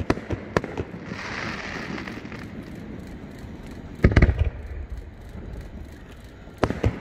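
Aerial fireworks shells going off in a display, a series of sharp bangs. The loudest cluster comes about four seconds in and two more come near the end. A hiss runs between about one and two and a half seconds in.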